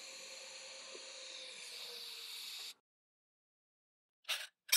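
A steady TIG welding arc on straight DC with no pulsing, fusion-welding thin stainless steel at 60 amps: an even hiss with a steady whine that cuts off suddenly a little under three seconds in. A few short clicks follow near the end.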